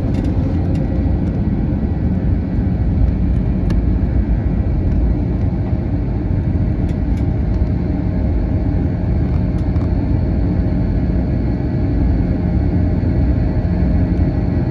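Steady low rumble of an Airbus A321 jet airliner heard from inside the passenger cabin, with a faint steady whine and a few light clicks.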